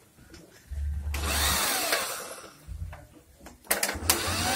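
Corded electric hand drill boring into an aluminium window frame, run in two short bursts, about a second in and again near the end. Its whine rises and falls in pitch as the trigger is squeezed and eased.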